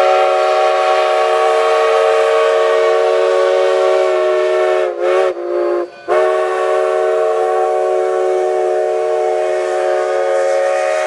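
Steam locomotive No. 484's whistle blowing: a long held multi-note blast that sags in pitch and stutters off about five seconds in, then a second long blast.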